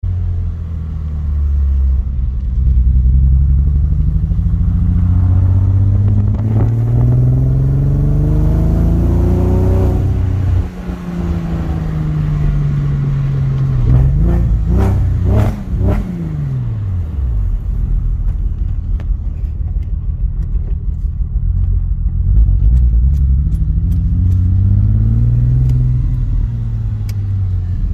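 Porsche Boxster S (986) 3.2-litre flat-six engine with a bad misfire, revved up slowly and let fall back, blipped quickly a few times near the middle, and revved slowly again near the end. Between revs it idles low and unevenly with irregular clicks.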